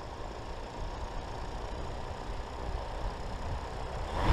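Electric motors of a Yuneec Typhoon drone spinning its propellers at idle on the ground: a steady whir with a low rumble under it. The sound swells sharply right at the end as the motors spool up.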